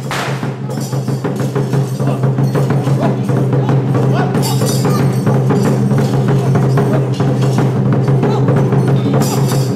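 Traditional gong-and-drum band accompanying a Song Jiang troupe: fast, steady drum beating with cymbal clashes about halfway through and again near the end, over a steady low hum.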